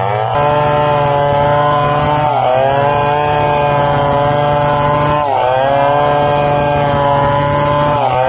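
Stihl 070 two-stroke chainsaw running at full throttle while ripping a log lengthwise into boards. Its pitch sags briefly three times as the chain loads up in the cut, then climbs back.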